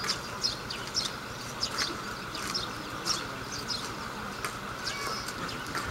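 Small birds chirping: many short, quick, high chirps scattered irregularly, over a steady background noise.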